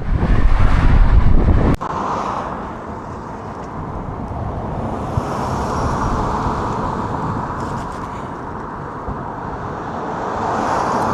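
Loud low wind buffeting on the microphone with a sharp click about two seconds in as the camera is set down, then steady traffic and road noise.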